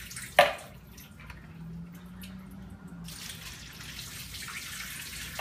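Liquid running and dripping into a kitchen sink, after one sharp knock about half a second in.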